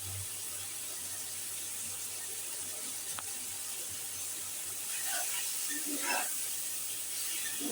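Potatoes and spices sizzling steadily in hot mustard oil in a kadai as they are sautéed, with a few short scrapes of stirring near the end.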